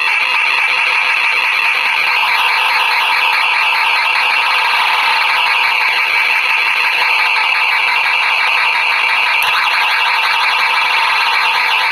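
ChipTrickPocket DIY chiptune synthesizer, modulated by an XR-NoizBox II, putting out a loud, continuous harsh electronic squeal and noise. Its pitch flutters rapidly, and near the end it sweeps in repeated glides as the modulation knobs are turned.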